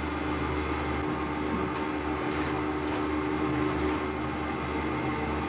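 Steady mechanical hum with an even hiss over it, a few low tones held unchanging.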